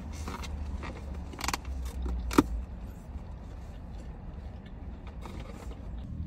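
Low, steady rumble of a car interior, with a few light clicks and rustles and one sharp click about two and a half seconds in.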